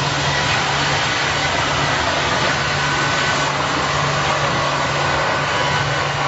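Log sawing machine running steadily, a constant motor hum under a loud, even machine noise.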